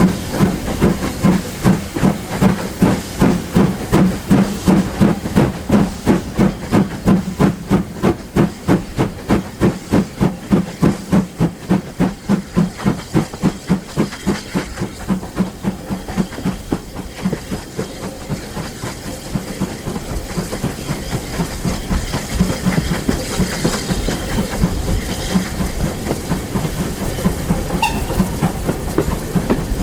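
Steam locomotive working under steam, its exhaust beats coming in a strong, even rhythm that quickens and then fades away after about fifteen seconds. A steady rumble of the train running on the rails follows.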